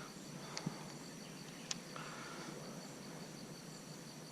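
Faint, steady high-pitched insect chirring, with a couple of small clicks.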